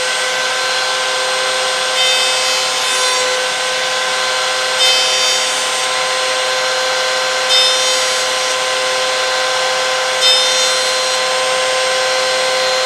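Table-mounted router running at a steady high-pitched whine, with four brief bursts of cutting about every two and a half seconds as a small piece of wood is fed against the fence to cut a shallow groove for a wooden hinge, a little deeper with each pass.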